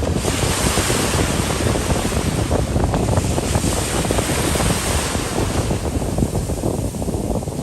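Wind buffeting the microphone over a steady rushing wash of sea surf.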